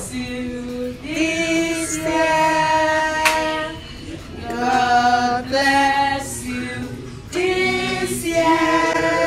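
A group of people singing a birthday song together without accompaniment, in long held notes with short breaks between phrases.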